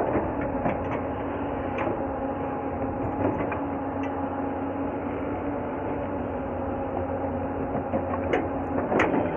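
Hyundai R220-9SH crawler excavator engine running steadily as its bucket works soil in a drainage ditch, with a few sharp knocks: one near the start, one about two seconds in, and two close together near the end.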